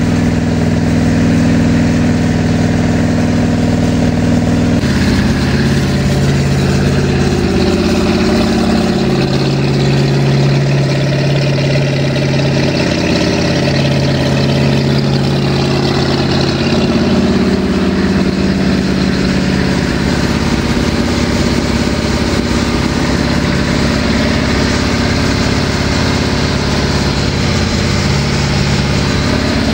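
Marine Oldsmobile 455 V8 running steadily on its first fire, during camshaft break-in. The engine note shifts abruptly about five seconds in, then holds steady.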